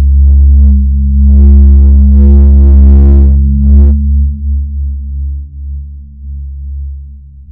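Horror film score: a loud, steady low drone, with a higher layer of stacked tones over it for the first four seconds, after which it falls away to a quieter drone.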